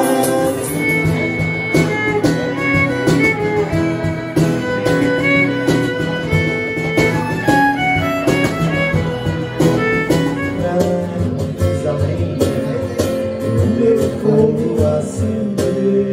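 Instrumental passage by a violin, acoustic guitar and cajón trio: a bowed violin melody of held notes over strummed guitar chords and a steady cajón beat.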